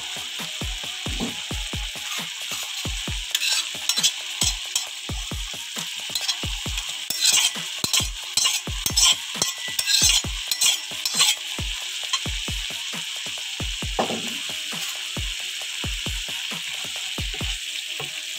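Prawn masala sizzling and bubbling in a steel pan, with a wooden spatula scraping and clinking as fried prawns are scraped in from another pan, busiest from about 3 to 11 seconds, then stirring the curry.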